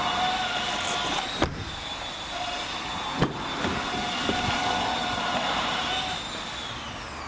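A car's steady mechanical whine with two sharp clicks; near the end the whine fades and falls in pitch as it winds down.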